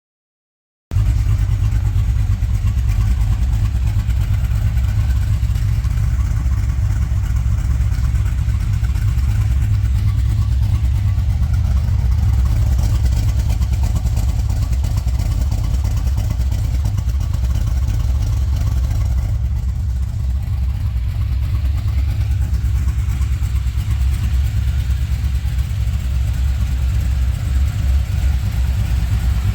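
LS V8 engine in a 1961 Chevrolet C10 running with a steady, deep rumble, cutting in abruptly about a second in.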